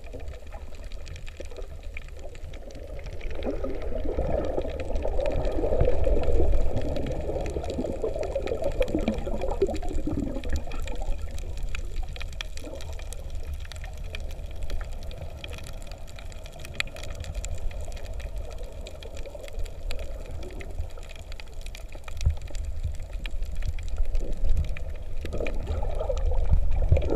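Muffled water movement and bubbling picked up underwater through a camera housing, over a steady low rumble. The gurgling swells about three seconds in, dies back after about ten seconds, and rises again near the end.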